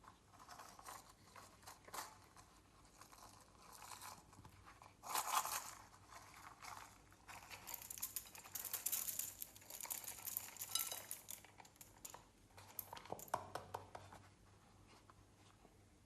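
Clear slime being mixed by hand with added bits, giving irregular crackling, crinkling and clicking, densest in the middle.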